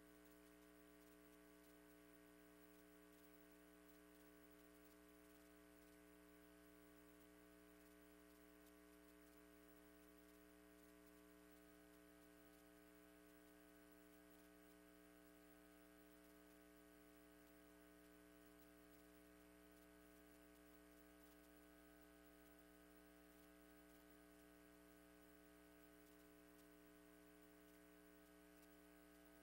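Near silence with a faint, steady electrical hum of several fixed tones.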